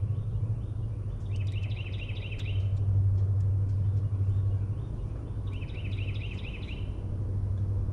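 Steady low rumble, with a bird singing two quick runs of repeated high chirps, the first about a second in and the second near six seconds.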